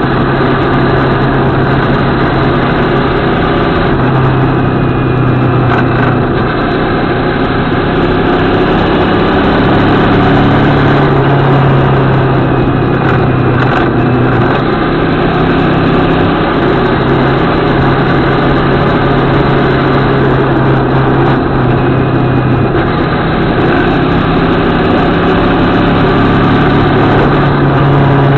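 CFMOTO 650MT motorcycle's parallel-twin engine running steadily under way, its note shifting slightly through the bends. Heavy wind and road noise sit over it, picked up by a camera mounted on the bike.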